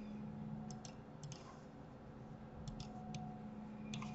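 Computer mouse and keyboard clicks: a handful of short, scattered clicks, several in quick pairs, over a steady low hum.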